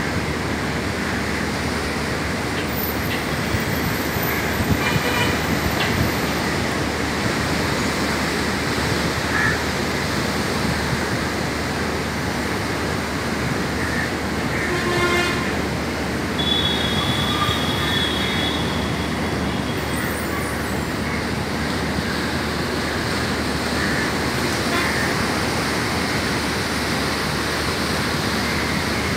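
Steady noise of road traffic, with a vehicle horn tooting briefly about halfway through and a high steady tone for a few seconds after it.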